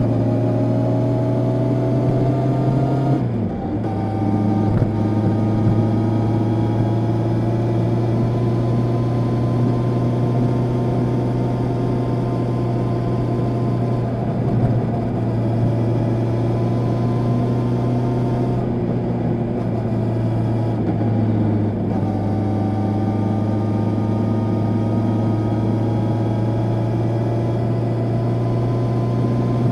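Honda CB650R's 649 cc inline-four with stock exhaust, running under throttle while riding: the engine note rises, drops sharply about three seconds in, then climbs slowly again, with two brief dips near the twenty-second mark.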